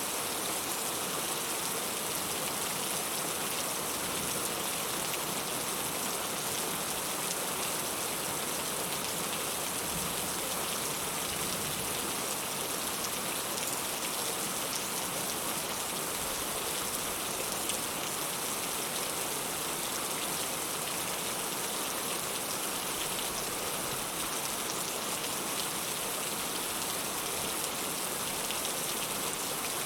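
Heavy rain falling steadily, a dense even hiss of raindrops with no let-up.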